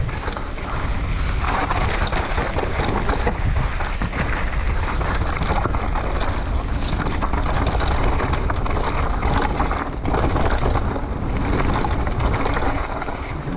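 Mountain bike descending a dirt and gravel trail at speed: knobby tyres rolling and crunching over the ground, the bike rattling with many small knocks over roots and bumps, and wind rushing on the microphone as a steady low rumble.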